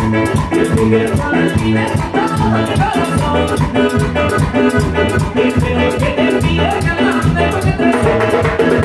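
Live cumbia band playing: electric guitar and bass over a drum kit, with a metal güiro scraping a steady quick beat.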